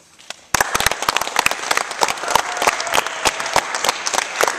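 Audience applauding, starting suddenly about half a second in as a dense patter of many hands clapping.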